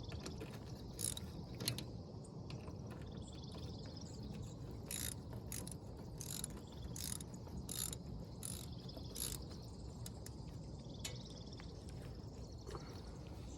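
Ratchet wrench clicking in short runs as the brake caliper bolts are tightened snug, with the loudest clicks coming about every half second through the middle.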